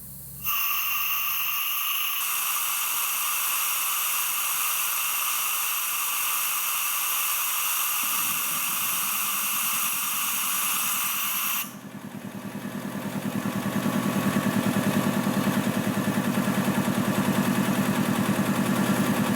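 Compressed air hissing out of an air compressor tank as it is bled down, for about eleven seconds before it cuts off sharply. The rebuilt DeVilbiss DevAir two-stage compressor then kicks back on and runs with a fast, even pumping pulse, getting louder as it comes up to speed while refilling the tank.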